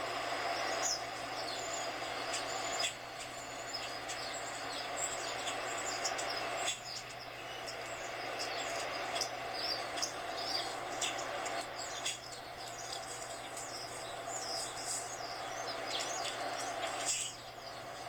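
Wild birds chirping and tweeting in many short calls, played back from a bird video for cats, over a steady hiss of outdoor background. The background changes abruptly about four times.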